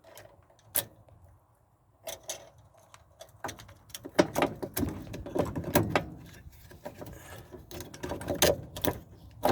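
Washer mode shifter parts clicking and knocking as they are handled and fitted together by hand: a single click about a second in, then from about two seconds a run of irregular clicks and knocks.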